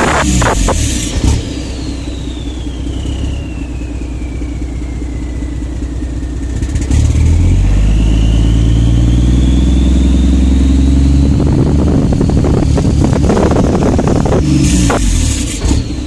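Mercedes MBE 4000 inline-six truck diesel running, then pulling louder and rising in revs about seven seconds in, with a high whine that falls slowly in pitch and then rises again. The engine has a misfire and runs over-rich at partial throttle.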